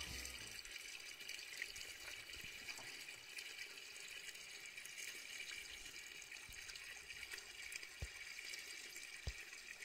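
Faint steady background hiss, with two faint ticks near the end.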